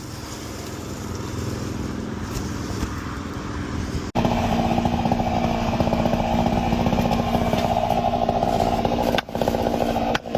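Chainsaw engine running. About four seconds in it switches abruptly to a louder saw held at a steady high pitch, which drops out briefly near the end.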